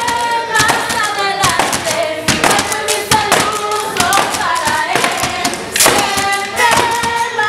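Group of voices singing together over rattling, tapping percussion from plastic bottles and tin cans used as homemade shakers and drums, with frequent sharp hits.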